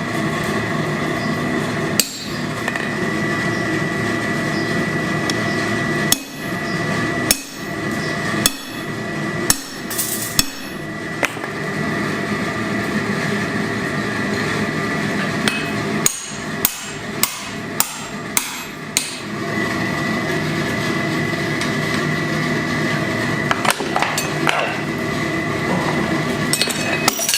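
Hammer blows on hot steel at an anvil while forging tongs: single strikes spaced a second or more apart, then a quick run of about seven blows a little past halfway, and a few more near the end. A steady droning hum runs underneath.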